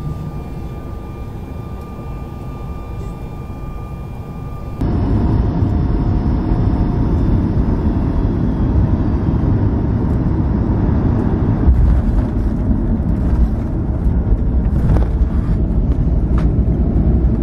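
Boeing 737 MAX jet engine (CFM LEAP-1B) heard from inside the cabin during takeoff: a steady engine noise with a thin high whine. About five seconds in it cuts to a louder, deeper rumble of a 737 MAX 9 rolling down the runway after landing.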